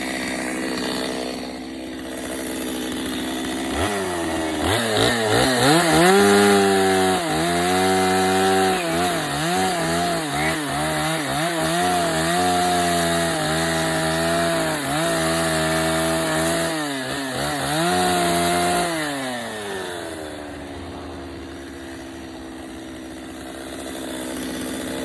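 Chainsaw running at idle, then revved up about four seconds in and cutting into the wood, its engine pitch dipping and recovering as it bites, before dropping back to idle near the end.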